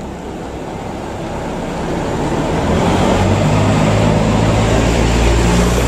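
A car coming past close by, its engine hum and tyre noise swelling as it approaches and staying loud through the second half.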